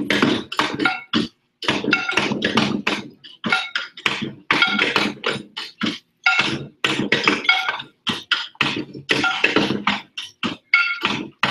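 Wheelbarrows played as percussion instruments by a group of children: clusters of quick strikes with short gaps between them, many of the hits ringing with a clanging tone.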